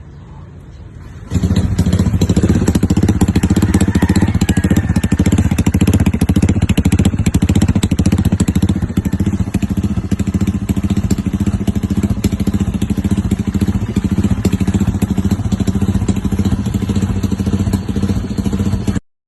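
Honda PCX 150 scooter's single-cylinder four-stroke engine running steadily through an aftermarket AUN exhaust pipe, with a loud, fast exhaust pulse. It starts abruptly about a second in and cuts off suddenly near the end.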